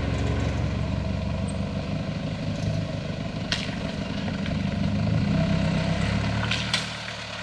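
A Toyota Prado 4x4's engine running steadily at low revs, with a sharp knock about three and a half seconds in and two more near the end.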